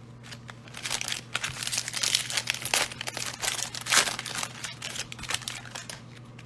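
Plastic wrapper of a Donruss football card fat pack being torn open and crinkled by gloved hands, in a run of rustling bursts that peaks about four seconds in and tapers off as the cards come out.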